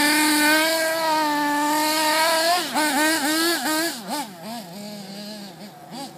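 The .32 nitro engine of a 1/8-scale 4WD RC truggy, held at high revs for about two and a half seconds, then blipped through a quick series of short revs that settle lower and fade as the truggy pulls away.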